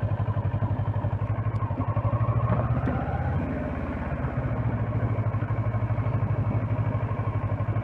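Kawasaki Versys 650's parallel-twin engine running at low revs through slow, tight turns, its exhaust pulses steady. It eases off briefly about three seconds in, then picks up again.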